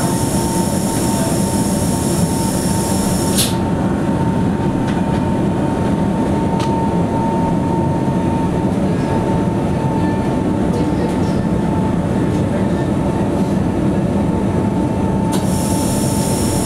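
Monte Generoso rack railway train running, heard from inside the car: a steady running rumble with a constant whine. A high hiss over it drops away a few seconds in and comes back near the end.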